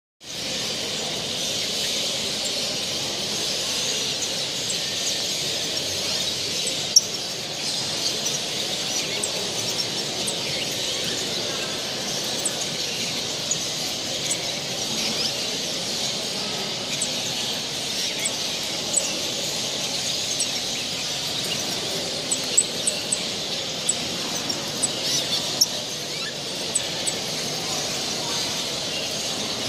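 Chorus of many caged canaries and finches singing and chirping at once: a steady high twittering, with single sharp chirps standing out, more often in the second half.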